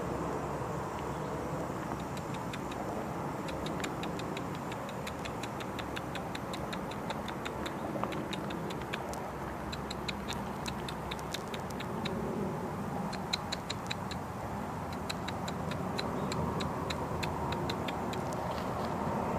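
Steady rumble of distant road traffic. Over it, from about two seconds in until near the end, comes a long run of short, high, evenly spaced ticks or chips, about four a second.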